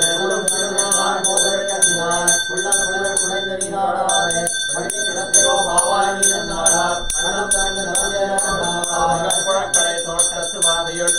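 A brass puja hand bell (ghanta) rung rapidly and steadily, its strokes running on without a break, over men chanting mantras.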